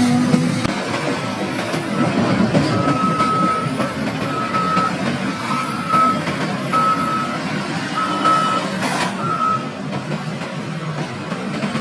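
Heavy machinery's diesel running steadily under a backup alarm that beeps about seven times at an even pace, stopping about three-quarters of the way through; a single sharp knock comes just before the beeps end.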